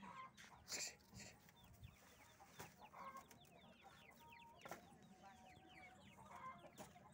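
Faint clucking of caged Aseel chickens, with many short, high chirps that fall in pitch and a few soft knocks.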